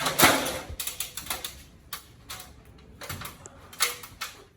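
Thin PVC ceiling filler piece being pushed up into a drop-ceiling grid: a run of irregular plastic clicks, taps and rustles, the loudest right at the start.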